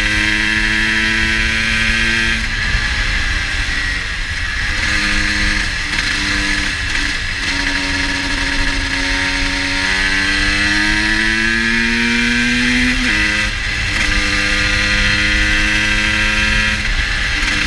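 GasGas EC 250 two-stroke single-cylinder engine running, its pitch held steady, breaking off and picking up again, then climbing slowly for several seconds before dropping abruptly and settling. The bike is running slightly rich on a cold day.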